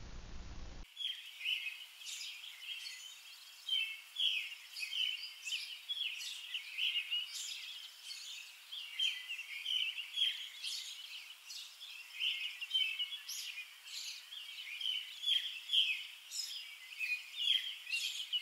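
Birds chirping and singing, many short calls in quick succession over a faint hiss, starting just under a second in.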